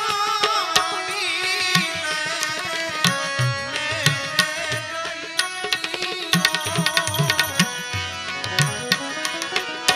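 Live bhajan accompaniment: a harmonium sustains chords while a tabla plays a steady pattern of sharp treble strokes and deep, booming bass strokes. A man's sung note wavers and fades in the first two seconds.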